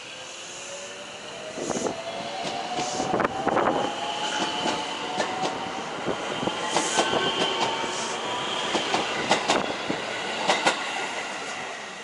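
JR West 223 series electric train pulling away from the platform: the traction motor whine rises slowly in pitch as it accelerates, with the wheels clacking over rail joints as the cars roll past. The sound fades near the end as the train moves off.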